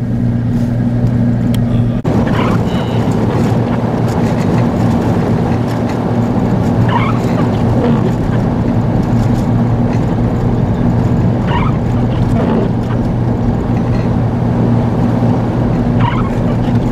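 A car driving on the highway, heard from inside: a steady low drone with a constant hum, and a short rising squeak about every four to five seconds.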